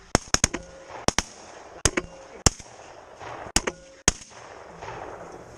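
A rapid volley of shotgun blasts from several hunters firing at geese overhead, about ten shots in the first four seconds, some coming in quick pairs and triplets, then no more shots.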